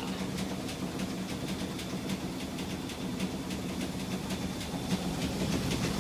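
Sears Kenmore washing machine running with a steady hum and a fast, regular rattle of knocks, about four a second, as it shakes violently. The machine is vibrating so hard that it moves from its place, despite its vibration guard.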